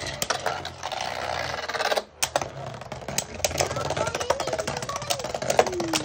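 Two Beyblade Burst spinning tops whirring in a plastic stadium, clashing against each other and the stadium walls with rapid sharp clicks and clacks.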